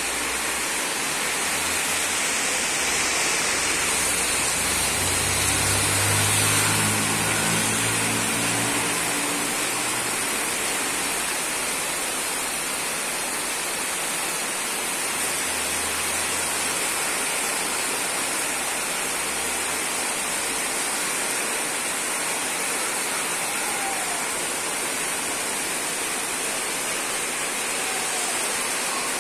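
Steady heavy rain, a dense even hiss, with a low rumble swelling and fading between about four and ten seconds in.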